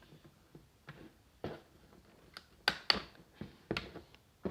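Scattered sharp clicks and knocks from a plastic SCAR 168 gel blaster rifle being handled, about eight at irregular intervals, several bunched near the end.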